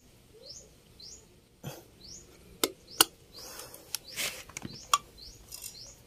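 Several sharp metallic clicks, the loudest about two and a half, three and five seconds in, as a CVT clutch-shoe spring is worked onto the clutch shoes with a pointed tool and wire hook. Behind them a bird chirps over and over in short rising notes.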